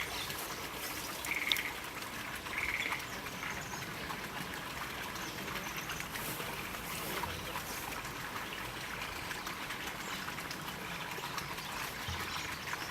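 Bull-headed shrike giving two short, harsh calls within the first three seconds, over a steady trickle of running water that carries on alone afterwards.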